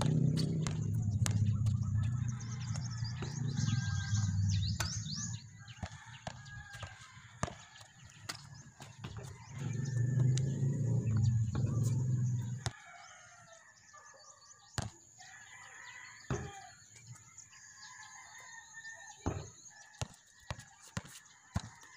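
A basketball bouncing on an outdoor concrete court, sharp bounces at uneven intervals, with birds chirping and calling in the background. A low rumble runs through the first half and cuts off suddenly a little past halfway.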